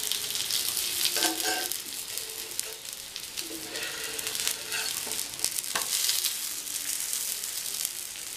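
Oil sizzling and crackling under wheat-flour rotis frying on an iron dosa tawa, with a metal spatula scraping the pan a few times and one sharp knock near the six-second mark as the rotis are turned over.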